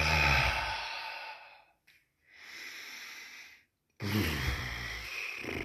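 A man's heavy breathing: a loud, voiced, sigh-like breath out that fades over about two seconds, a softer breath in, then a second loud sighing breath out about four seconds in.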